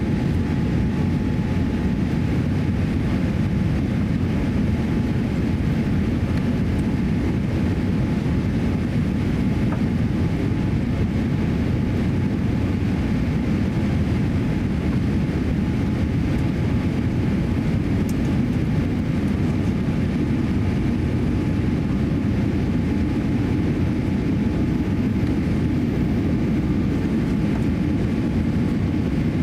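Steady cabin noise of a Boeing 787-8 airliner on final approach: engine and airflow noise heard from inside the cabin, deep and unbroken.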